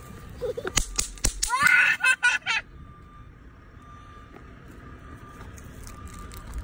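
Several sharp cracks of bang snaps (throw-down poppers) going off on pavement about a second in, with a child's high squeal right after. Then it goes quieter.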